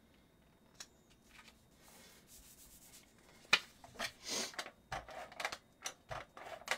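Paper and cardstock being handled and slid across a scrapbook layout: soft rustling and scattered light taps, busier from about halfway, where one sharp tap is the loudest sound.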